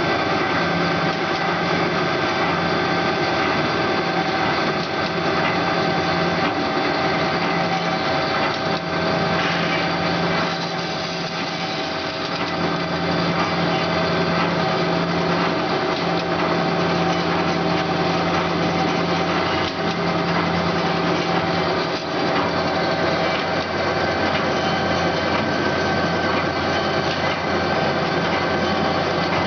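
DoAll C916SA automatic horizontal bandsaw running steadily, a dense mechanical drone with several steady tones. The level dips briefly about ten seconds in, then settles back.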